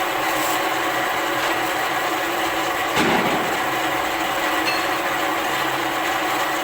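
Power tool cutting into the steel of a concrete mixer drum cone, running steadily, with a single knock about three seconds in.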